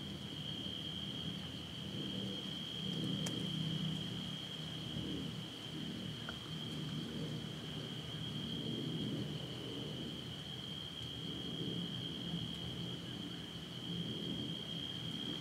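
Steady, unbroken high trill of night insects in the woods over a low, wavering rumble, with one sharp click about three seconds in.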